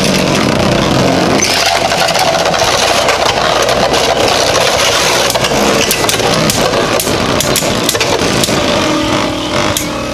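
Two Beyblade Burst tops fitted with 3D-printed metal rims, whirring steadily as they spin and scrape around a plastic stadium, with many sharp clicks as they clash. The whirring eases a little near the end.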